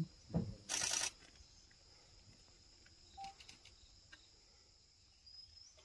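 Faint steady high-pitched chirring of insects such as crickets, with a short loud hiss about a second in.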